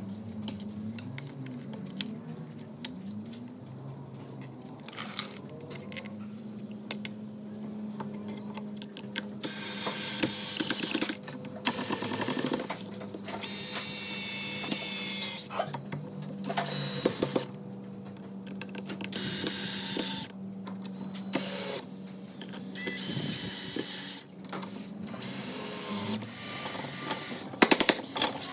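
A small electric power tool, drill-like, run in short bursts with a high whine, starting and stopping repeatedly over the second two-thirds. Before that there is only a low steady hum with light handling sounds.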